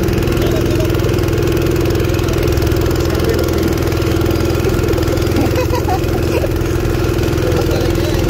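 Go-kart engine running at a steady speed as the kart is driven along the track, heard from the driver's seat.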